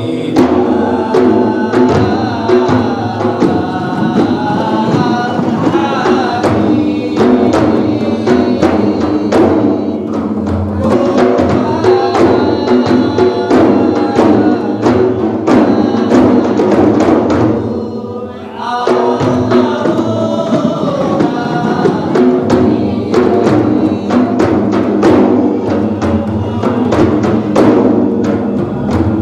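Group of large hand-beaten frame drums (rebana) played together in a fast, dense rhythm, with voices chanting over the drumming. The playing thins out briefly about two-thirds of the way through, then picks up again.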